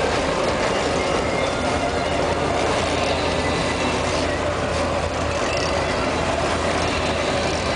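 Sportfishing boat's engine running steadily under way, a constant low hum under the churning rush of its wake.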